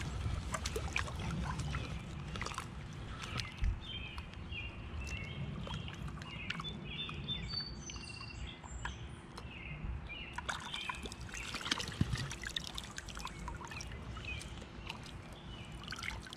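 Water sloshing and dripping as a black glass bottle is rinsed by hand in a shallow river, with scattered small clicks and knocks. Birds sing in the background through the middle.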